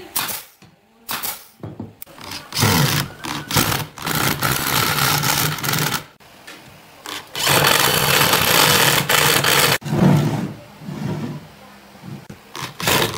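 Cordless drill driving screws into pine boards, its motor running under load in two long runs of about three seconds each, with shorter bursts near the end. A few sharp clicks come in the first two seconds.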